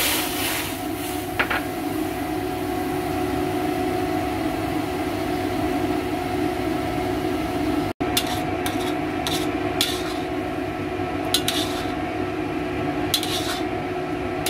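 Sauce poured into a hot stainless steel wok, with a short hiss at the start as it hits the metal, then stirred with a metal ladle that clinks and scrapes against the wok several times in the second half. A steady hum runs underneath.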